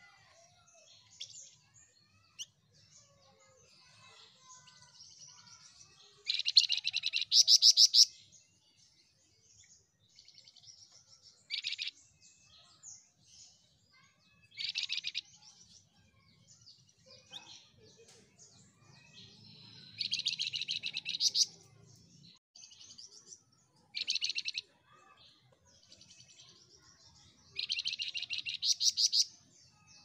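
A flamboyan songbird singing in bursts: about six fast chattering runs of rapidly repeated high notes, with soft twittering between them. The loudest runs come a few seconds in and near the end.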